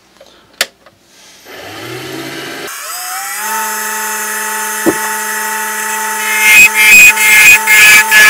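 Wood lathe switched on, its motor spinning up with a rising whine and settling to a steady hum as a red oak handle turns on a mandrel. From about two-thirds of the way through, a thin parting tool cuts into the spinning oak, a loud scraping in quick repeated pulses.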